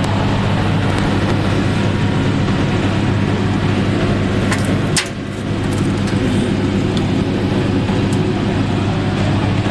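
Steady, loud hum and whir of a fiber laser welding machine's electrical cabinet and its cooling fan running, with a few brief clicks around the middle and once more later.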